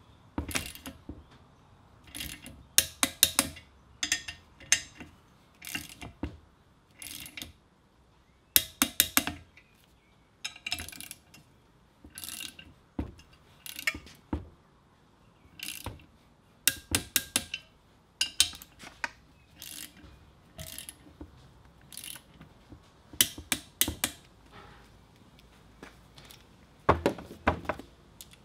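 Ratcheting torque wrench clicking in short runs of quick clicks, again and again, as the motor's mounting nuts are tightened to 15 foot-pounds.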